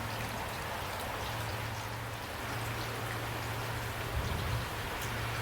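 Steady rain falling: an even hiss with scattered drop ticks and a low hum underneath.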